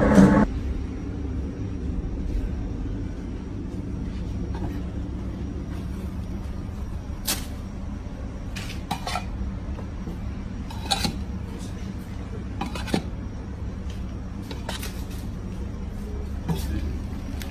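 Electric meat grinder's motor running with a steady hum as ground beef is pushed out through the plate, with a few sharp metal clinks every couple of seconds.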